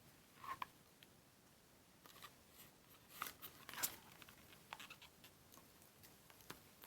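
Faint handling of packaging: scattered short rustles and light clicks, a few louder ones about half a second in and around three to four seconds in.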